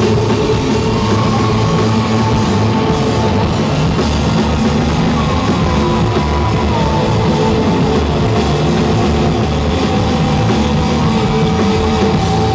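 A rock band playing live with electric guitar, drums and keyboards: loud, dense, sustained music with held notes and a few gliding notes about halfway through.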